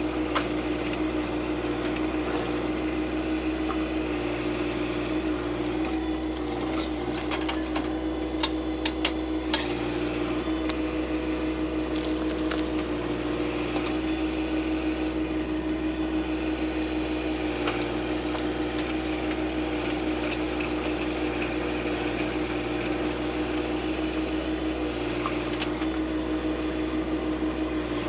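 John Deere 2025R compact tractor's three-cylinder diesel engine running at a steady speed while it works the backhoe, with scattered clicks and knocks between about six and ten seconds in.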